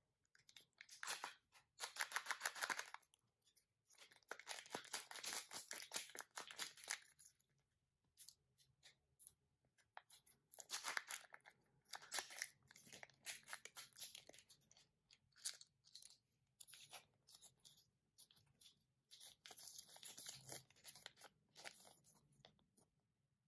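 Plastic packaging of a Kinder Joy toy capsule crinkling and tearing in the fingers as it is opened, in several spells of dense crackling with short pauses between.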